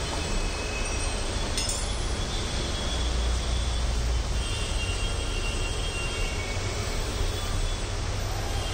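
Steady background rumble with an even hiss, unbroken throughout, and a short click about one and a half seconds in.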